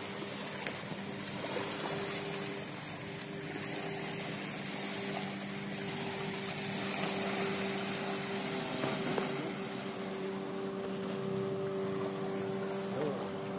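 A boat engine runs steadily out on the water, a constant even hum, over the wash of water along the shore. A single sharp click sounds under a second in.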